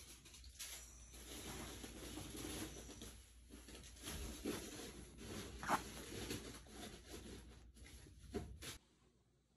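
Close, irregular rustling and scratching of a hand rubbing a Shiba Inu's fur, with a few brief louder scrapes, the sharpest a little past halfway. It cuts off suddenly shortly before the end.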